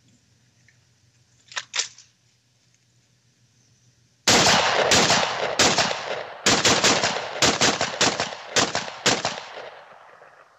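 Over a dozen semi-automatic gunshots in quick succession, the first few about half a second apart and then faster, each with a short echoing tail. Two sharp clicks come a couple of seconds before the firing. Heard through a video call's compressed audio.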